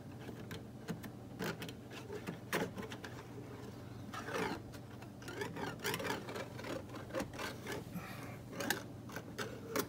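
Irregular light clicks and scraping of a thin stainless steel tie strap being pushed down through a hole inside a car door, rubbing and catching on the plastic and metal inside.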